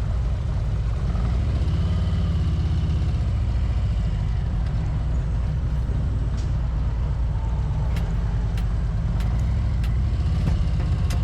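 Motorcycle engine running with a steady low rumble as the bike pulls out and rides off. Light, regular clicks come in about two-thirds of the way through.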